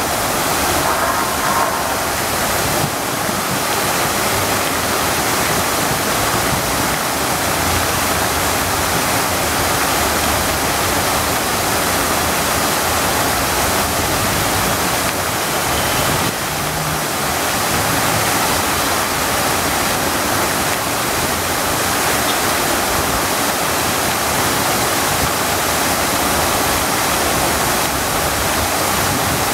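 Cascade fountain's vertical and arching water jets splashing down into the basin: a steady rush of falling water.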